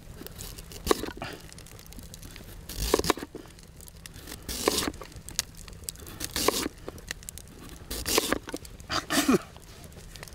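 Kitchen knife slicing through a raw sweet potato on a wooden cutting board, about six cuts one to two seconds apart, each a crisp crunch that ends in a knock of the blade on the board.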